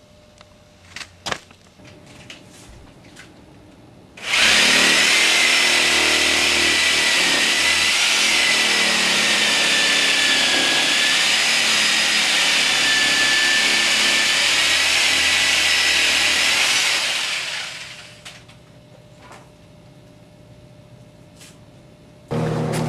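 Electric power saw running steadily with a high motor whine for about thirteen seconds, then winding down. A few light clicks come before it, and a lower steady hum starts suddenly near the end.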